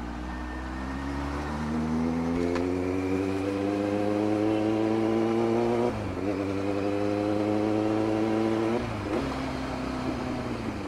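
Kawasaki Z900's inline-four engine pulling hard under acceleration, its pitch climbing steadily, with a sharp drop at an upshift about six seconds in and another about three seconds later.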